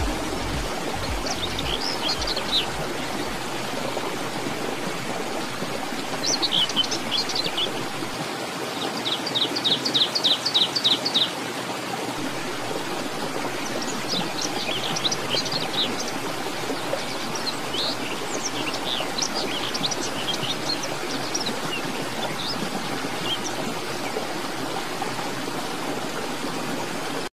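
Small birds chirping and trilling in scattered bursts over a steady wash of flowing water. The loudest call is a fast run of repeated notes about ten seconds in.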